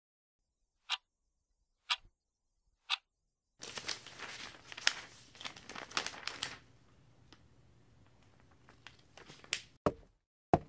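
Three clock ticks a second apart, then about three seconds of newspaper pages rustling and crinkling, then two sharp knocks near the end.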